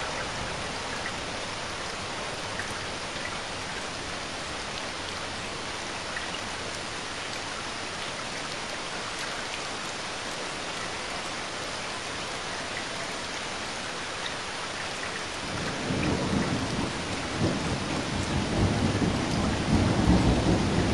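Heavy rain falling in a steady hiss. About fifteen seconds in, a low rumble of thunder builds and grows louder.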